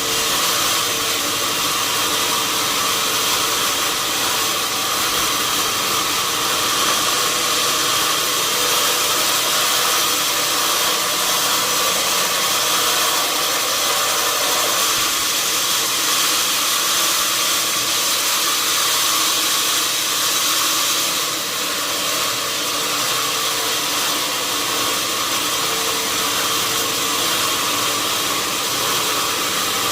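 Sawmill machinery running steadily: a continuous hissing mechanical noise, with a brief dip about twenty seconds in.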